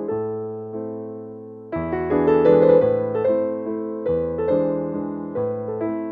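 Background music: piano chords and melody with sustained, decaying notes, softer in the first second or so and growing fuller with a new chord about two seconds in.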